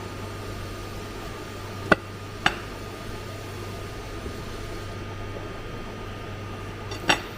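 Three short, sharp clinks of a machined part being handled and knocked against a hard surface: two about half a second apart a couple of seconds in, and one near the end. Under them runs a steady low hum.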